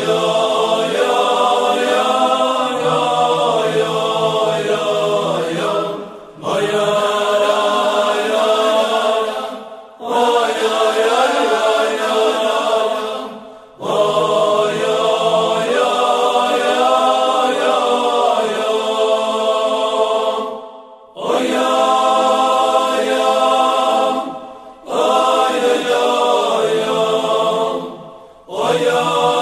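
A Hasidic melody sung in a chanting style, in phrases a few seconds long with short breaks between them.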